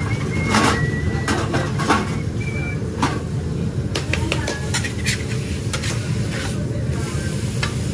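Metal spatulas scraping and clacking against a steel flat-top grill in a series of short, irregular strikes, with a few brief ringing tones from the metal early on. A steady low hum runs underneath.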